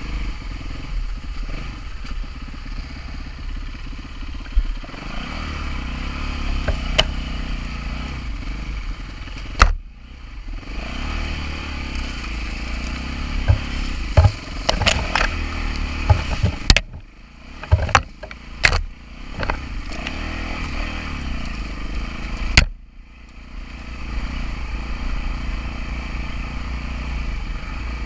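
A Yamaha WR-F enduro bike's single-cylinder four-stroke engine is ridden on a rough trail, its pitch rising and falling as the throttle is opened and closed. Several sharp knocks and clatters come from the bike over the rough ground and brush. The engine sound drops away briefly a few times where the throttle is shut off.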